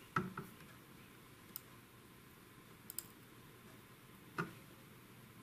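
A few light, sharp clicks of metal soldering tools, tweezers and a soldering iron tip, touching the circuit board and a component. The loudest comes just after the start, then single clicks and a quick double click spread over the next few seconds, over faint steady hiss.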